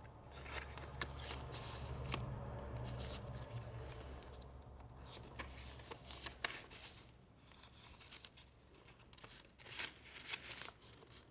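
Paper rustling and light clicks as the pages, pockets and tucked cards of a handmade paper junk journal are handled and turned, in short irregular bursts, over a faint low hum in the first half.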